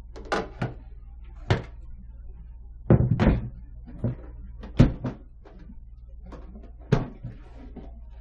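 Snap-in side panels of a Kudo3D Titan 1 3D printer case being popped off and handled: a series of sharp knocks and clacks, about a dozen, loudest about three and five seconds in, over a low steady hum.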